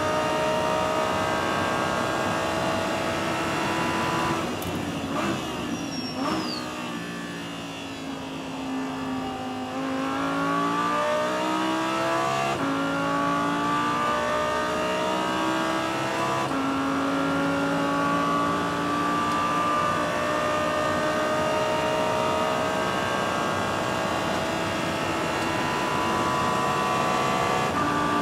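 Audi R8 LMS GT2's V10 engine heard from inside the cockpit at racing speed. It runs high in the revs, drops sharply as the car brakes and shifts down about four to six seconds in, then climbs again under full throttle, with upshifts about twelve and a half and sixteen and a half seconds in, pulling hard toward the end.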